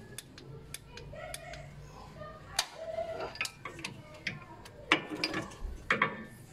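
Metal socket and extension bar clicking and clinking against bolts and engine metal as they are handled, a scatter of sharp ticks with the loudest knocks about two and a half, five and six seconds in.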